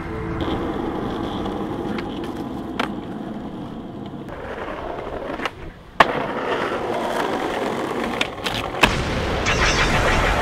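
Skateboard wheels rolling over rough asphalt and paving, with sharp clacks of the board striking the ground several times. The loudest clack comes about six seconds in.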